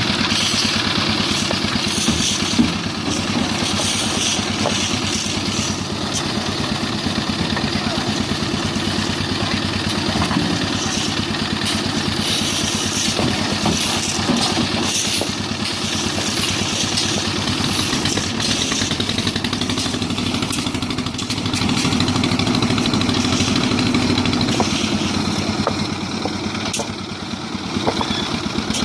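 Concrete mixer machine's engine running steadily.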